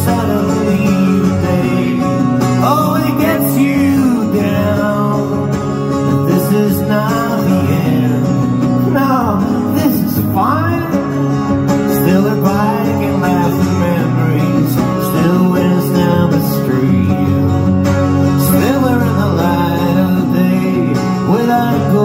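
Acoustic guitar played live in a continuous passage without words, with notes that slide up and down in pitch.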